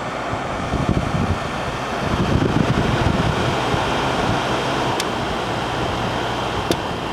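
Whirlpool Coolerator 7,000 BTU window air conditioner running on high cool: a steady rush of the fan blowing air, with a low hum underneath. Two brief clicks come near the end.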